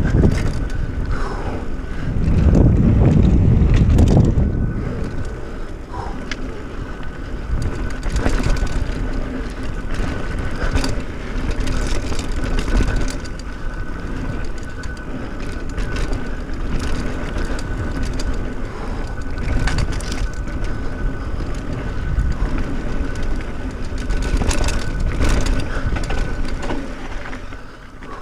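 Mountain bike riding along a dirt forest trail: tyres rumbling and crunching over the dirt while the bike rattles and knocks over bumps. Wind buffets the microphone, heaviest about two to four seconds in.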